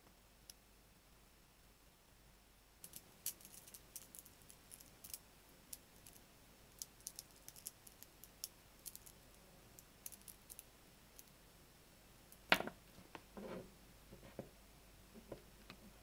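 Small magnetic balls clicking and snapping together in quick, irregular runs of faint sharp ticks. A single louder knock comes about three quarters of the way in, followed by a few softer knocks.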